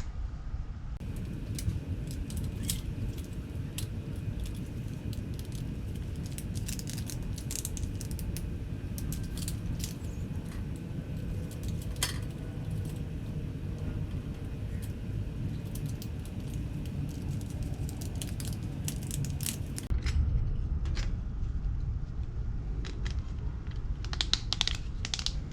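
Light, scattered metallic clicks and clinks of hand tools and wire ends being worked on the terminals of a 240-volt outlet, over a steady low rumble.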